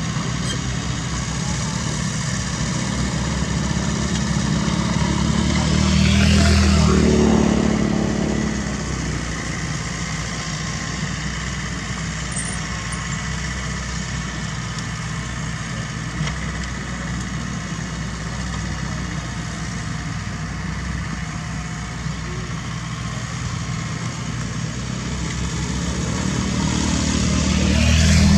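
Mini excavators' diesel engines running steadily at work, with a louder swell about six seconds in and again near the end.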